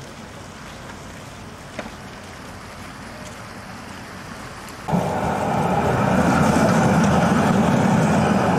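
Low steady background noise with one faint click, then about five seconds in a loud, steady tram rumble with a hiss above it starts suddenly and carries on.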